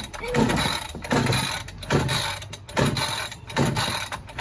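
Recoil starter of a new Husqvarna 545 two-stroke chainsaw being pulled again and again, about five quick pulls a little under a second apart. The engine turns over with each pull but does not catch.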